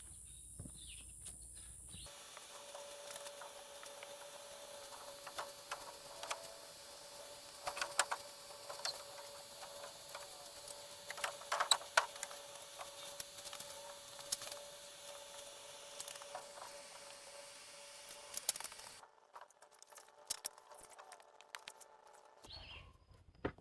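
Wooden rafters being shifted and set on a header: scattered light knocks and clicks over a faint steady hum.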